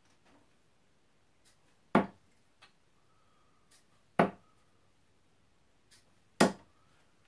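Three steel-tip darts striking a Winmau Blade bristle dartboard one after another, each a sharp thud, about two seconds apart.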